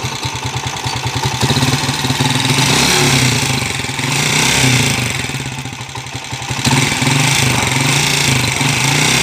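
Honda TMX 155 single-cylinder four-stroke engine running, its level swelling and easing a few times, with the rattling clack likened to a lato-lato clacker toy. The mechanic points to the timing gears and suspects a misfire.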